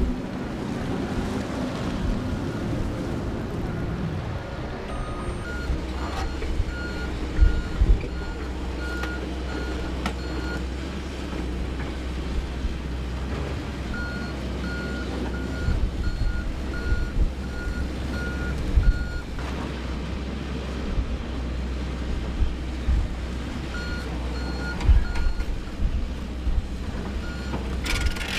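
Earth-moving machines (skid-steer loaders and an excavator) running, with a steady diesel engine drone. A reversing alarm beeps about twice a second in runs that stop and start several times. Occasional low thumps come through now and then.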